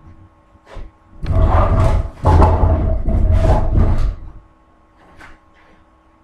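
Wooden bench dragged across a wooden plank floor: a loud scraping in two pulls, a short one of about a second, then a longer one of about two seconds.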